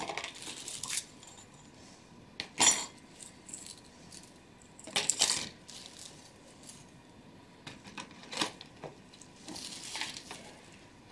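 Cleaned brass clock-movement parts clinking against each other and against plastic tubs as they are set down and sorted, a scattering of separate clinks, the loudest about three and five seconds in, with some rustling near the end.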